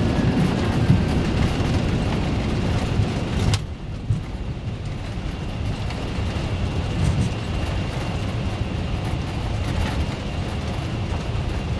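Cockpit noise of a McDonnell Douglas MD-11 in its landing rollout: a loud rushing rumble that falls off abruptly with a click about three and a half seconds in, leaving a steadier low rumble as the aircraft slows on the runway.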